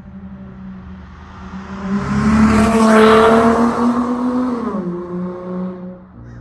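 Dodge Charger SXT with a Flowmaster Super 10 muffler driving past: the exhaust note swells to a peak about three seconds in, then drops in pitch as the car goes by and fades.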